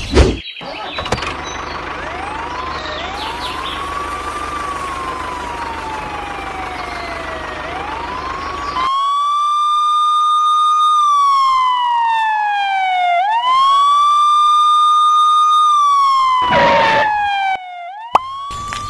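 Police siren wailing: a slow tone that rises, holds and glides back down, faint at first and much louder from about nine seconds in, repeating roughly every four and a half seconds. A sharp thump right at the start is the single loudest moment.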